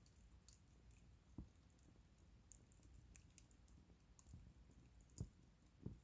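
Faint crackling of a wood bonfire: scattered small pops and ticks, with a few soft low knocks.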